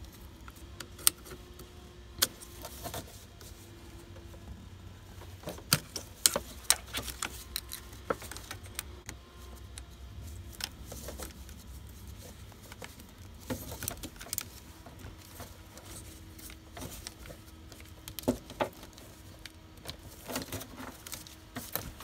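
Scattered small clicks and rattles of a metal pick prying up plastic release tabs and wiring connectors being worked loose from a GM multi-function turn signal switch, with a faint steady hum underneath.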